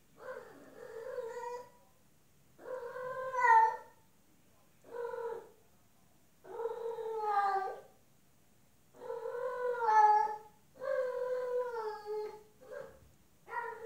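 Female domestic cat in heat caterwauling: a string of long, drawn-out yowls, each about a second or more, with short pauses between. It is the mating call of a queen in oestrus calling for a tom.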